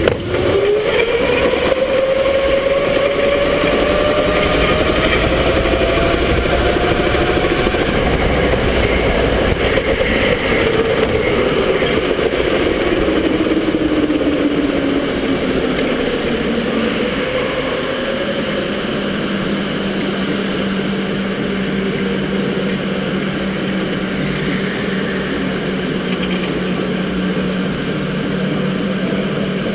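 Electric go-kart motor whining as the kart drives. Its pitch climbs slowly for the first several seconds, slides down over the middle stretch and then holds a steady lower hum, all over a constant rushing noise on the kart-mounted camera.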